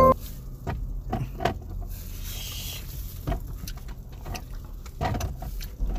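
Low steady rumble of a car cabin with a few faint scattered clicks and rustles.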